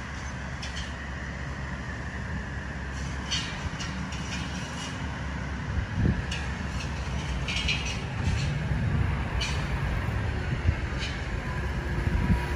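Diesel concrete mixer truck approaching along the road, its engine rumble growing steadily louder as it nears.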